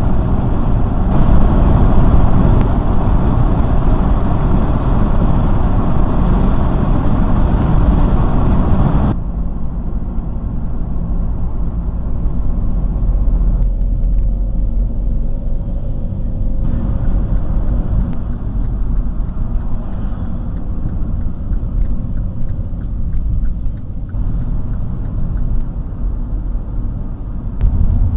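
Steady road and engine noise of a car driving. It is louder for the first several seconds on the motorway, then drops suddenly to a quieter run, with a few more abrupt steps in level where clips are joined.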